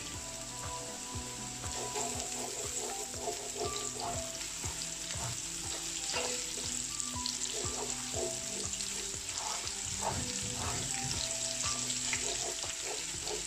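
Chopped garlic and ginger sizzling in hot oil with browned onions, stirred with a silicone spatula that scrapes and knocks against the nonstick pot again and again.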